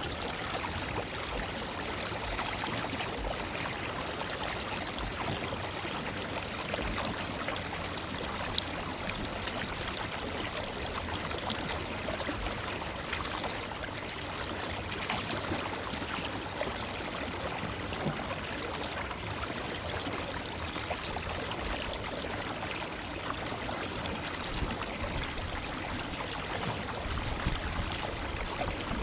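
Forest river flowing steadily over rocks, a continuous rush of water with small splashes and trickles.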